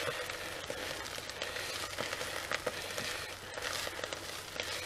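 Chopped wild garlic and onion sizzling steadily in oil in a small pan as the leaves wilt, with light clicks and scrapes of a utensil stirring them.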